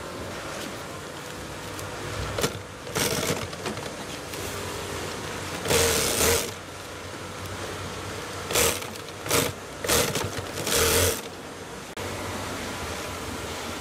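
Industrial sewing machine stitching tent fabric in short runs: about seven bursts of under a second each, the longest near the middle, over a steady machine-room hum.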